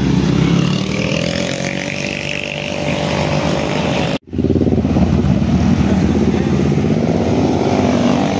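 Road traffic passing close by: car and motorcycle engines, one engine note rising slightly over the first few seconds. The sound cuts out abruptly about four seconds in, then resumes with more engines as a scooter rides past.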